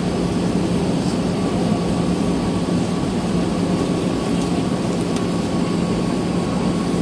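Steady jet engine and airflow noise inside the cabin of an Airbus A320-214, with its CFM56 turbofans running and a faint constant whine over a low hum.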